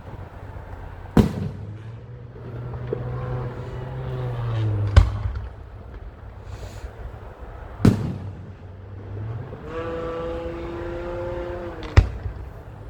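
Fireworks going off, four sharp bangs a few seconds apart. Steady humming tones sound between the bangs.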